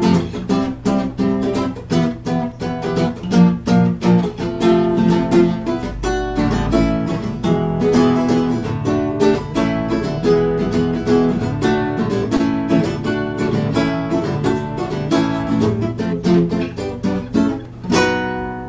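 Solo acoustic guitar playing an instrumental passage of picked notes and strummed chords to close a song; a final strummed chord near the end rings out and fades.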